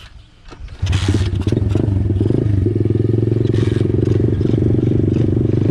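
Warmed-up SSR pit bike's small single-cylinder four-stroke engine idling. It comes in loud about a second in, with some clatter at first, then settles into a steady, fast, even firing beat.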